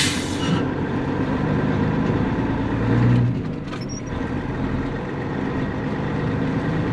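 Dump truck's diesel engine running steadily, with a short hiss of air right at the start and the engine swelling briefly about three seconds in.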